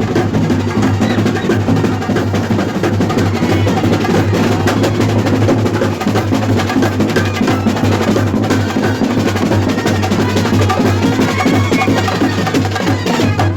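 Chenda drums beaten with sticks in a fast, dense, unbroken stream of strokes, as in Kerala chenda melam drumming.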